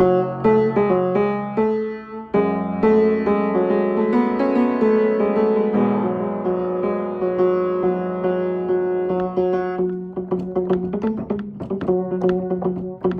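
Instrumental music with no voice: keyboard notes and long held tones. About ten seconds in, it turns to short, quick plucked notes.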